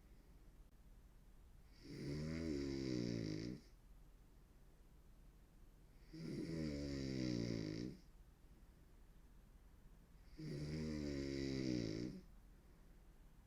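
A woman snoring hard: three long, pitched snores about four seconds apart, each lasting under two seconds, with quiet between them.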